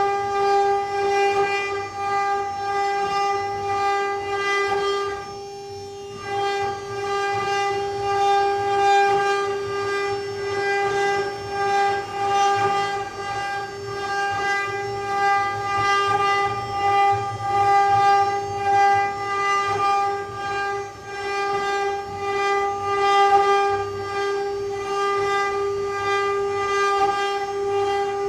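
CNC wood-carving router's spindle running with a steady high whine, its level rising and falling as it cuts, with a brief dip about five seconds in.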